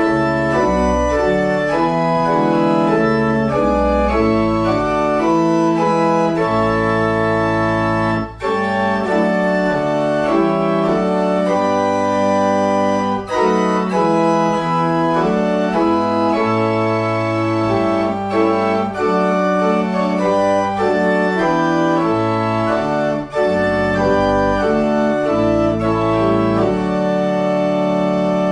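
1969 Wicks pipe organ playing full sustained chords over a deep pedal bass, with a few short breaks between phrases.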